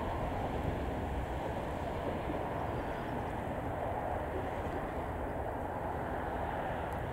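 Distant RAF Tornado GR4 in flight, its twin RB199 turbofans heard as a steady low rumble.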